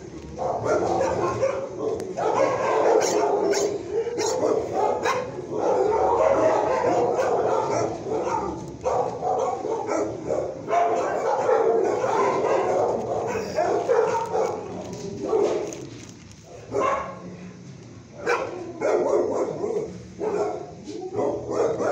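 Shelter dogs barking and yipping in the kennel area, the barking almost unbroken and easing off for a few seconds about three-quarters of the way through.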